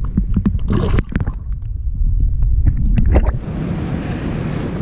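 Water churning and bubbling around a camera held under the surface of a rock pool: a low rumble with many small crackling clicks. About three and a half seconds in it changes suddenly to the steady hiss of surf and wind on the shore.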